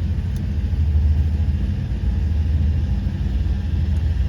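A 1972 Imperial's 440 V8 idling steadily, heard from inside the car's cabin, about a minute after a cold start.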